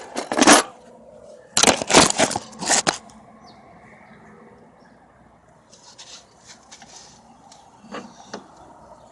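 A quick run of knocks and scrapes from handling, in two clusters within the first three seconds, then a few faint light clicks near the end.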